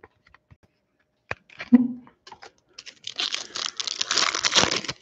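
Foil trading-card pack wrapper being handled and torn open: a few light clicks and taps, then about two seconds of dense crinkling near the end.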